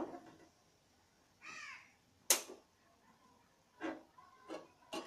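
A crow caws once, about a second and a half in. Moments later comes a single sharp clink, the loudest sound.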